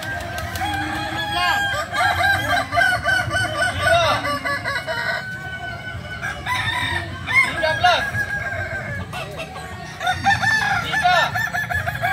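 Many Kokok Balenggek roosters crowing at once. Their long crows, made of many short stepped syllables, overlap continuously, thinning briefly about halfway through and again near the end.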